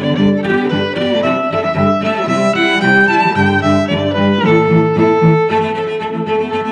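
Background instrumental music: a quick string melody, violin-like, over lower cello-like notes with a steady pulse.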